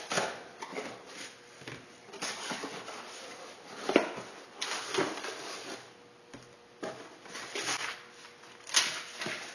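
Cardboard shipping box being opened and handled on a workbench: irregular scraping and rustling of cardboard and packing, with a few sharp knocks, the loudest about four seconds in and another near the end.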